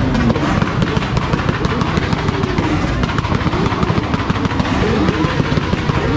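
Motorcycle engines revved up and down in blips, with rapid, irregular popping and crackling from the exhausts. This is the backfiring that throws flames out of the exhaust pipes.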